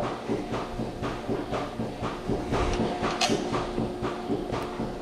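Small metal clicks and taps of bolts and a hand tool being worked into a DeLaval milking robot arm's stainless plate, over a steady mechanical hum. A brief hiss about three seconds in.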